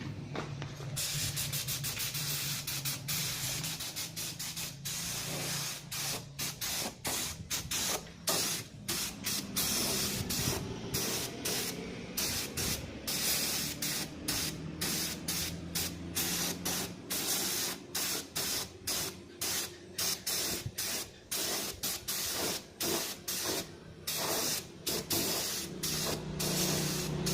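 Hissing spray in many short on-and-off bursts, starting about a second in, over a low steady hum.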